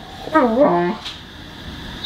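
Weimaraner in labour whining once, a short cry of about half a second that dips and rises in pitch and ends on a held note.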